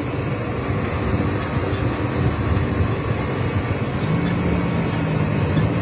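Steady low rumble of street traffic, with a steady low hum joining about four seconds in.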